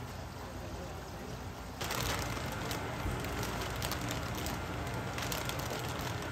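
Stiff brown paper crinkling and rustling as gloved hands fold it around a package, starting suddenly about two seconds in, over a low steady background hum.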